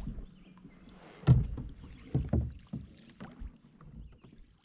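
Kayak paddling: a double-bladed paddle worked from the seat, with several sudden knocks, the loudest about a second in and two more close together about two seconds in.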